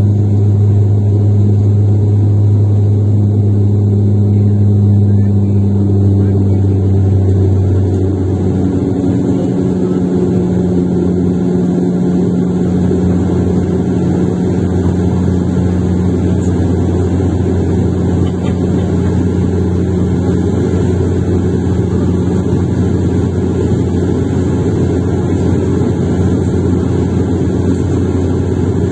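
Cabin noise of a turboprop airliner in its climb after takeoff: a loud, steady engine-and-propeller drone with a low hum. About eight seconds in, the hum drops slightly in pitch and level as the power is eased back.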